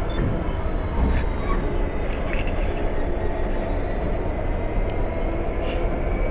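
EWS Class 66 diesel locomotive running as it moves slowly along the track, its two-stroke V12 engine giving a steady low rumble. A few light clicks come from the train about a second in, a couple of seconds in, and near the end.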